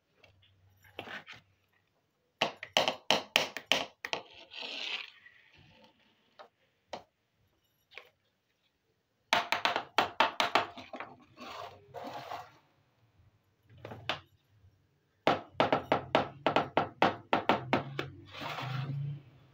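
Miniature plastic toy kitchenware being handled and set down: quick runs of light clicks and taps, three main bursts with a few single clicks between them.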